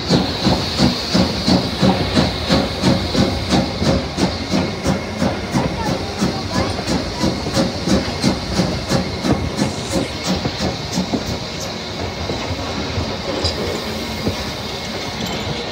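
Strasburg Rail Road No. 90, a 2-10-0 steam locomotive, moving slowly: steady steam hiss under a regular chuffing beat of about two and a half a second, which grows weaker and less distinct in the last few seconds as it arrives.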